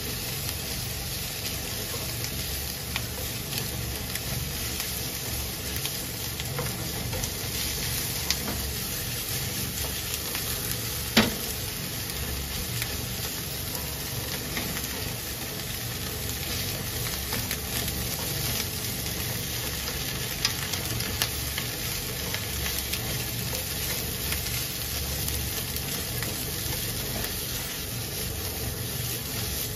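Cabbage and bacon sizzling steadily in an oiled non-stick frying pan as they are tossed with tongs. Scattered clicks of the tongs against the pan, with one sharper knock about eleven seconds in.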